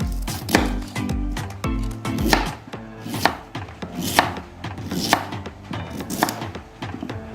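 Knife chopping on a cutting board: single sharp strokes about once a second, over background music.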